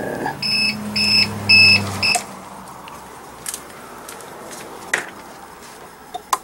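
APC Back-UPS XS 1000 alarm beeper sounding four short high beeps, about two a second, over a low hum as the unit is plugged in and goes online. A few faint clicks follow.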